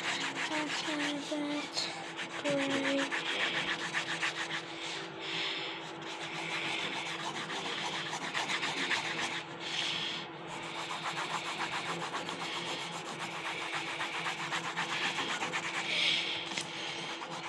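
Wooden pencil scratching on paper close to the microphone, in quick continuous back-and-forth strokes as a drawing is shaded in.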